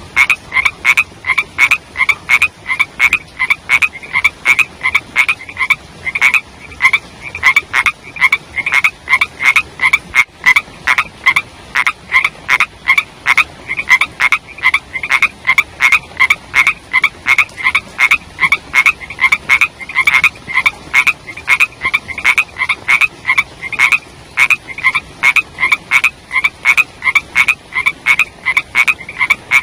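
Small frogs calling in a steady, rapid series of short croaks, about three to four a second.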